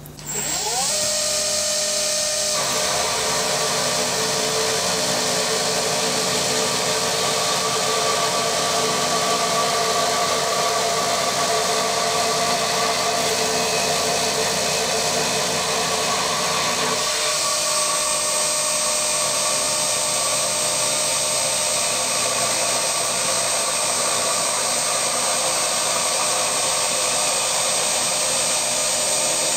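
Vertical milling machine running with its end mill cutting a slot in a cast aluminium table: a steady machine whine with several held tones, starting right at the beginning. Its tone shifts slightly about two and a half seconds in and again around seventeen seconds in. This is a light pass to widen the slot toward a sliding fit for a mitre fence.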